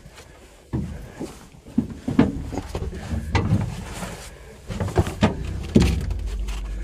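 Zetor 4011 tractor's four-cylinder diesel running low as the tractor moves off with a strapped load of oak logs, under a string of irregular clanks and knocks from the load and hitch, starting about a second in.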